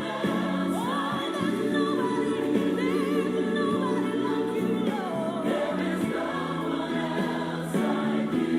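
Gospel worship music with a choir singing, sustained sung lines over steady accompaniment.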